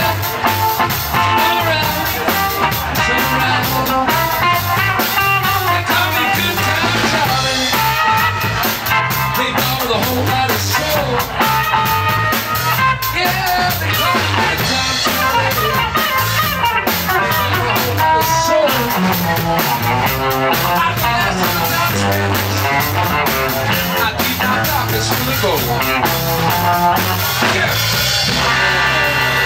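Live electric blues band playing a 1950s-style blues number: electric guitars and a drum kit, with a man singing lead.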